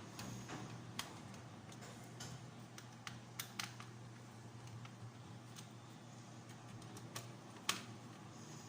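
Scattered light clicks and taps of small plastic parts and screws being handled and set in place, a few seconds apart, over a faint steady hum.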